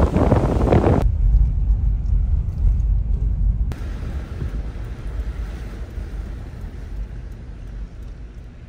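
Car driving: low road rumble, with loud wind rush on the microphone in the first second that cuts off abruptly, leaving a steady low rumble that slowly fades.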